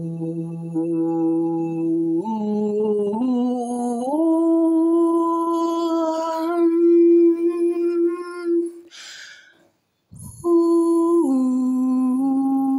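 A single voice humming a slow, wordless melody in long held notes, stepping up in pitch over the first few seconds. Near the end the note breaks off, a breath is heard, and after a short gap the humming starts again.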